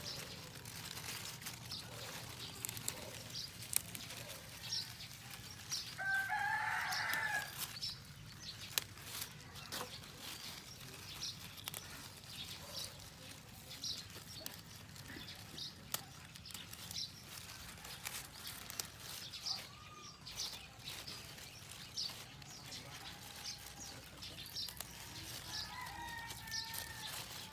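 A rooster crowing, one loud crow lasting about two seconds some six seconds in and a fainter crow near the end, over many short high ticks.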